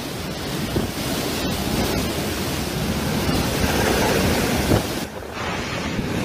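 Storm waves breaking and surging against a harbour wall, with strong wind buffeting the microphone, and a brief dip in level about five seconds in.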